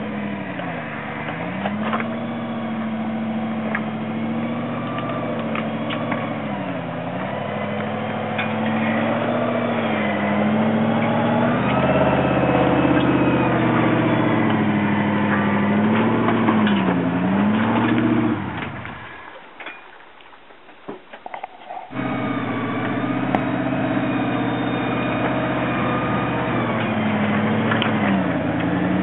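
V8 engine of a rock-crawling Toyota Hilux running at low revs under load, its note dipping and recovering every few seconds as the throttle is worked over the rocks. About two-thirds of the way through, the sound drops away abruptly for a few seconds, then the engine comes back.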